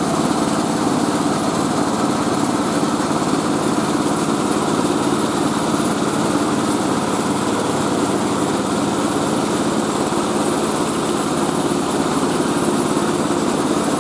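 Engine-driven mobile rice-milling machine running steadily at a constant speed.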